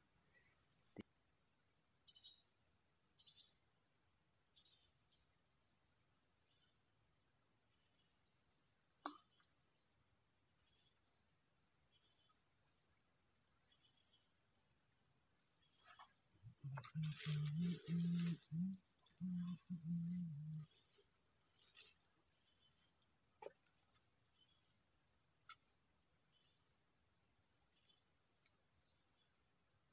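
Steady, high-pitched insect chorus that runs on without a break.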